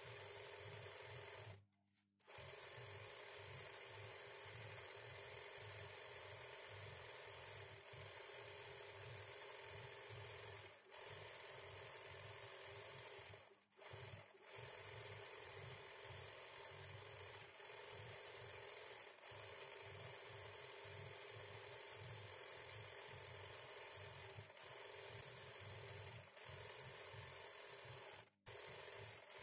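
Sewing machine running at a steady speed for free-motion embroidery, the needle stitching with a fast, regular beat as gold thread fills in a leaf motif on hooped fabric. The sound cuts out briefly a few times.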